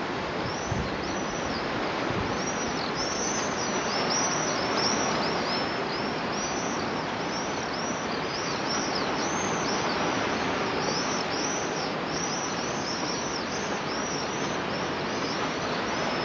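A flock of birds calling over and over, many short high chirps that arch up and fall, several a second, over a steady hiss.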